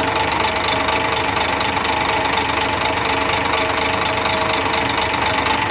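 Six-cylinder diesel dump-truck engine idling with a steady, rapid knock, which the mechanic takes for fuel knock caused by three faulty injectors.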